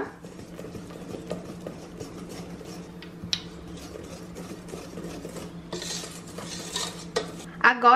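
Wire balloon whisk stirring thick chocolate batter in a stainless steel bowl by hand, with rapid light clicks of the wires against the metal and a few louder scrapes. A steady low hum runs underneath.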